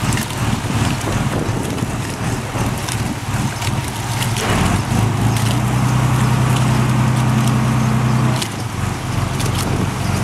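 Passenger launch's inboard engine running as the boat comes alongside a quay, with a jet of water splashing from an outlet in the hull side and wind on the microphone. The engine note grows steadier and louder about halfway through, then drops back about two seconds before the end.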